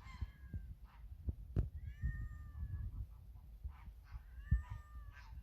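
A cat meowing: three drawn-out, level meows about two seconds apart, with a few dull low thuds between them.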